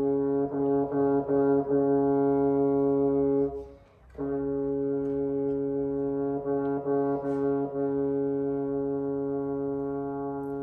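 Woodwind quintet of flute, oboe, clarinet, horn and bassoon holding a long sustained chord. The chord breaks off for a short breath about three and a half seconds in, then is held again and slowly fades toward the end.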